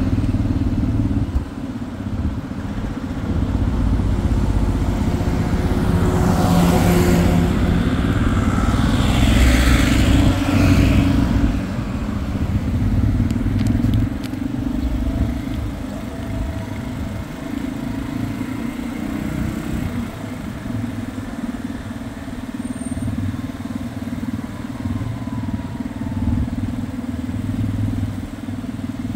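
Motor vehicle noise: a steady low rumble, with two louder passing swells about six and ten seconds in.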